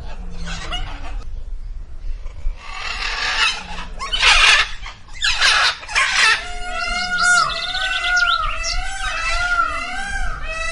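Bird calls: three harsh, raspy calls in the first half, then from about six seconds in a busy chorus of quick, repeated arching chirps.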